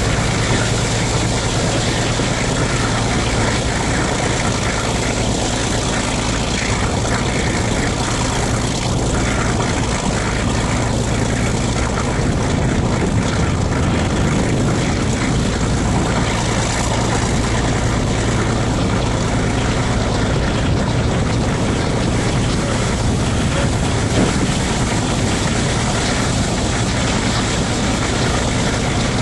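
Class 42 'Warship' diesel-hydraulic locomotive hauling its train on its one remaining Maybach V12 engine: a steady low engine drone under a constant rush of wind and wheel noise, heard from a window just behind the locomotive.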